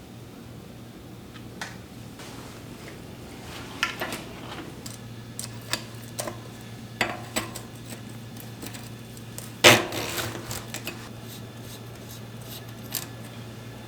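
Scattered metallic clinks and taps of tools and bicycle parts being handled on a workbench, with one louder clank about ten seconds in, over a steady low hum.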